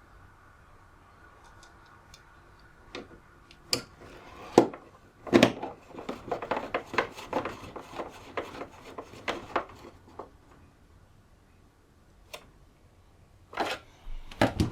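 Clicks, knocks and rubbing of the plastic case of a UPS being handled and fitted back together. There is a dense run of sharp taps through the middle and a few more knocks near the end.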